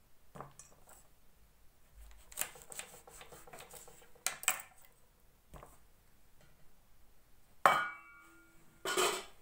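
Kitchen utensils and dishes clinking and knocking while citrus fruit is cut and handled. There is a run of small clicks and taps, then near the end one sharp clink against a dish that rings briefly.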